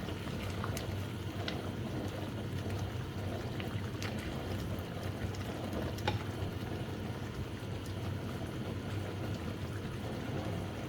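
Chicken and yogurt bubbling and sizzling in a karahi over high heat, with a few sharp pops, as the yogurt and chicken juices cook down.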